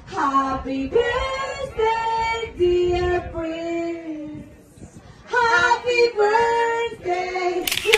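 A woman singing a slow melody of long held notes in phrases, with a short pause midway and a brief sharp click near the end.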